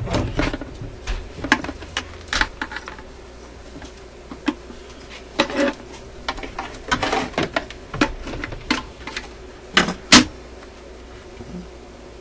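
Irregular clicks, knocks and rattles from handling a suitcase record player and pulling out its mains cord, with the loudest knock about ten seconds in.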